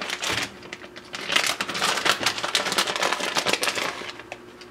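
Plastic bag of shredded cheese crinkling and rustling as a hand reaches in and pulls out a handful, a dense run of crackles that dies away about four seconds in.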